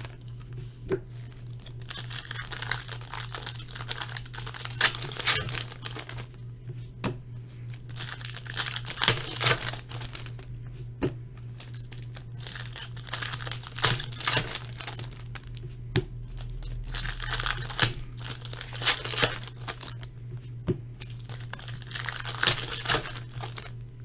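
Foil wrappers of Bowman Chrome baseball card packs crinkling and tearing as they are opened, with stiff chrome cards sliding and clicking against each other as they are sorted. Irregular bursts of crinkle and sharp clicks go on throughout over a steady low hum.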